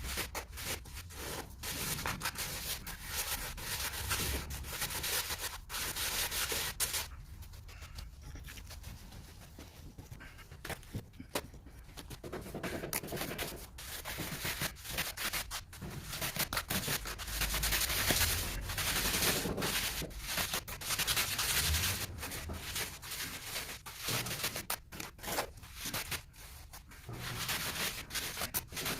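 Trowel scraping and rubbing across cement mortar in uneven strokes, laying and smoothing a floor base, with a few sharp knocks.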